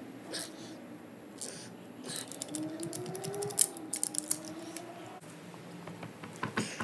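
Hand ratchet clicking in short irregular runs, with metal taps, as the nuts are backed off the ARP head studs of a Subaru EJ cylinder head.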